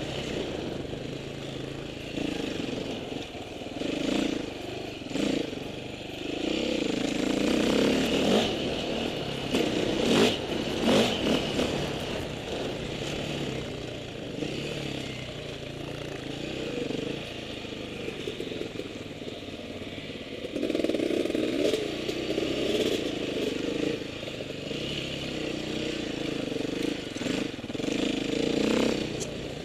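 Off-road motorcycle engine running, its revs rising and falling again and again, with scattered knocks and clatter that are loudest about a third of the way through.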